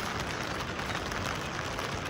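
Steady rain falling: a dense, even hiss of many drops.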